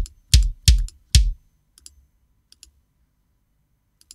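Sampled mahogany bass drum struck with a wood beater, four hits in about the first second and a quarter, each a sharp click of attack over a deep thud. A couple of faint clicks follow.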